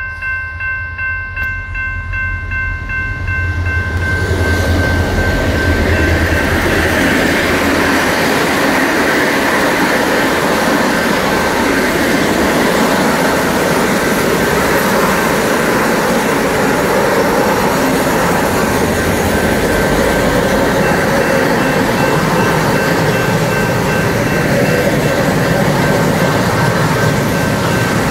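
A level-crossing warning bell rings at about two strokes a second. About four seconds in, a freight train's locomotive and hopper wagons arrive and pass close by with loud, steady wheel-on-rail noise, and the bell still sounds faintly beneath it.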